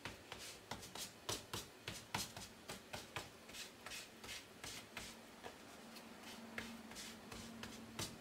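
Cloth rubbing paint over painter's tape on a puzzle piece: faint, quick scuffing strokes about three or four a second, thinning out after about five seconds.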